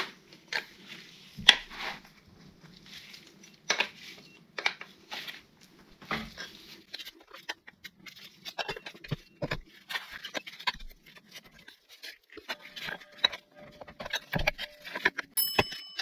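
Oil-seal puller hooked into an old driveshaft oil seal on a gearbox casing, levered to pry the seal out: irregular metal scrapes, clicks and rubbing knocks, with a short metallic ringing clink near the end.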